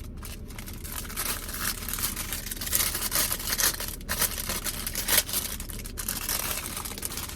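Packaging being handled, rustling and crinkling unevenly, with a few sharper crackles.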